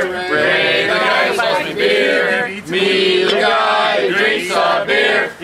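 A group of voices singing a chant together in unison, in short phrases with brief breaks between them.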